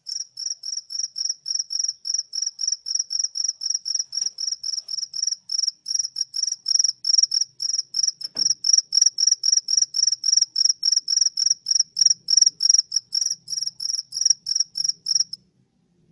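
A cricket chirping: an even run of short, high-pitched chirps, about three a second, that stops suddenly near the end.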